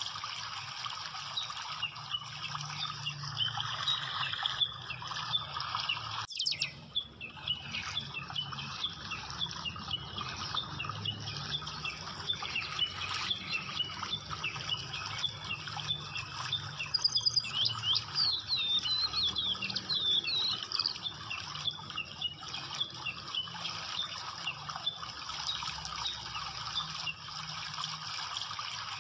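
Birds chirping over a steady rush of running water, with a busier run of quick rising chirps a little past the middle.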